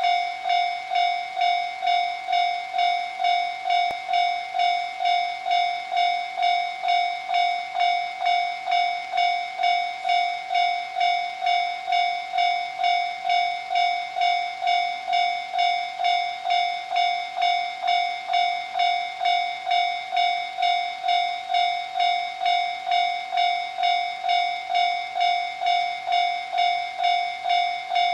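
Japanese railway level-crossing warning bell ringing in an even, endless repeat of about two electronic dings a second, one bright tone with higher overtones: the crossing is active, signalling that a train is approaching.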